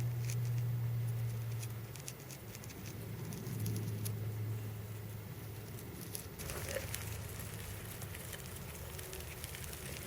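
Light pattering and scattered small clicks, over a low steady drone that fades out about halfway through.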